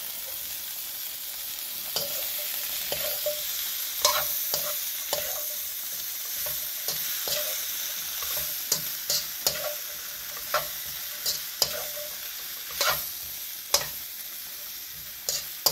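Vegetables sizzling in a hot wok, stirred and scraped with a slotted metal spatula that clinks sharply against the pan, the clinks coming more often in the second half.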